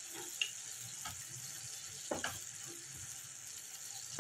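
Soy and chilli sauce simmering in a nonstick pan, a steady bubbling hiss, as cornflour slurry is stirred in to thicken it. A few light clicks and scrapes of a spoon and silicone spatula against the pan.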